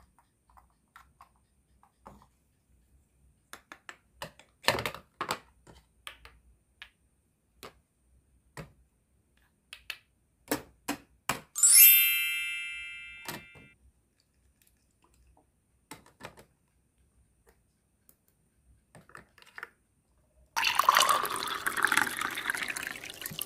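Small plastic toy pieces handled and set down, with scattered light clicks and taps. About 12 s in a bright chime rings out and fades. Near the end, liquid runs from a toy duck water dispenser's spout into a small plastic cup for about three seconds.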